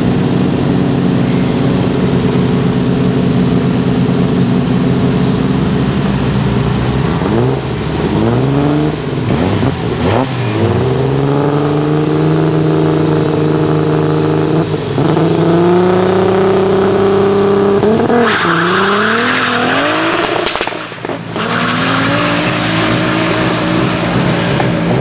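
BMW 5 Series rally car engine idling at the start, blipped up and down a few times, then revved hard and pulled away, the pitch rising through the gears with a short break for a gear change.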